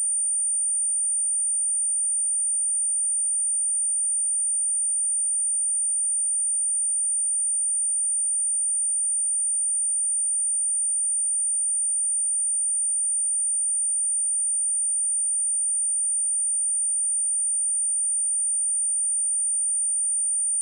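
A steady, unbroken high-pitched pure tone: a 9043 Hz sine wave played as a speaker test tone, meant to shake water and dust out of a speaker.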